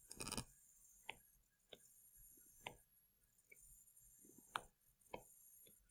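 Near silence broken by about seven faint, sharp clicks at uneven intervals: a stylus tapping and lifting on a drawing tablet as lines are drawn.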